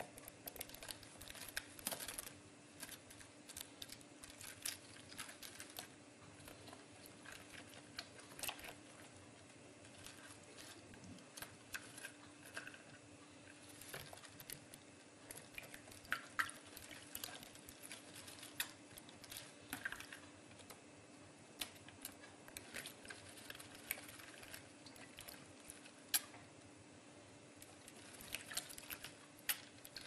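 Budgerigar bathing in a shallow plastic tub of water among wet lettuce leaves: faint, irregular little splashes, flicks and patters of water as it ducks and flutters, scattered throughout.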